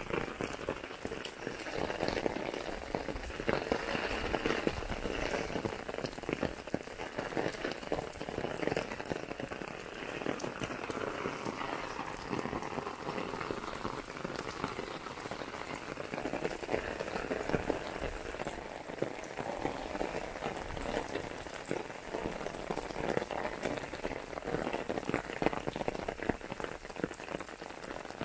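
Rain pattering on an umbrella held overhead: a steady, dense patter of drops with no break.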